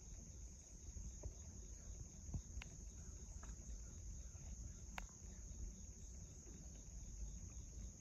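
Faint, steady, high-pitched insect chorus, with a low rumble underneath and a few soft clicks.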